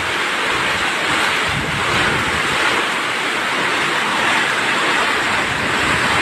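Typhoon wind and heavy rain: a steady rushing noise, with gusts buffeting the microphone.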